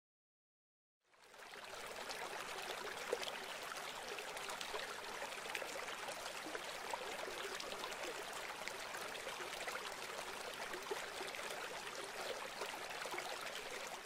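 Rain falling: a steady hiss of water dense with small pattering drops. It comes in about a second in and runs on steadily.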